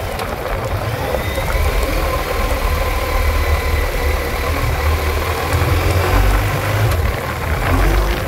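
Motorcycle engine running as the bike rides along a dirt track, with rumble and wind noise over it; it gets a little louder after a second or two.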